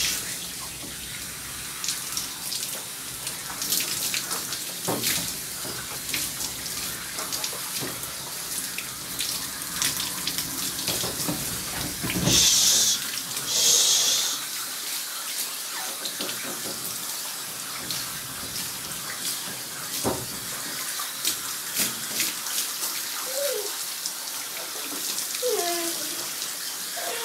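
Water spraying from a handheld pistol-grip bath sprayer onto a dog's coat in a grooming tub: a steady rush of water with two short, louder hisses about halfway through.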